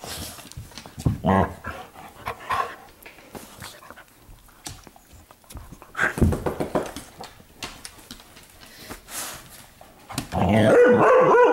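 Dogs playing rough, giving short play growls and barks, then a louder, drawn-out vocalization near the end.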